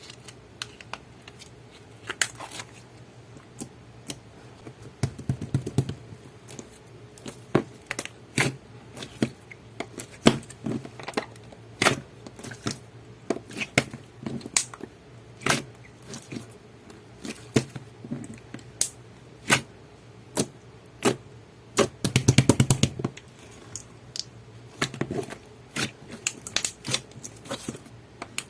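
Thick clear slime being squeezed and pressed by hand, making irregular sharp clicks and pops, with two longer runs of dense crackling, about five seconds in and again after about twenty-two seconds.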